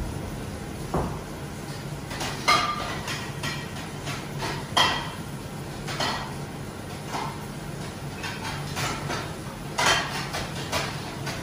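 Countertop convection oven running with a steady low hum, with scattered sharp metallic clinks and knocks over it, the loudest about two and a half, five and ten seconds in.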